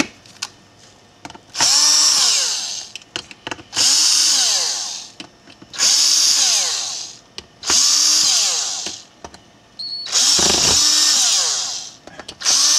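Power screwdriver backing out the six screws of a monitor's back panel: six short runs of about a second and a half each, the motor whine rising and then falling each time. Small clicks come between the runs.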